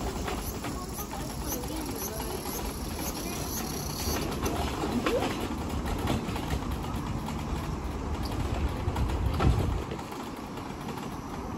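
An electric wheelchair rolling along a paved path, a steady low rumble that swells briefly about nine seconds in. A run of short, high, evenly repeated chirps sounds over it during the first few seconds.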